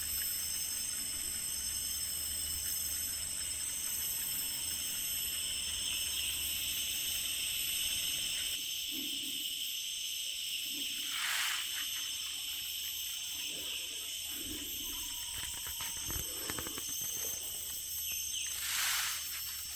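A plant gives two short hissing rustles, each falling in pitch, the first about eleven seconds in and the second near the end. The plant makes this loud rustle when touched. Under it, rainforest insects buzz steadily in several high tones.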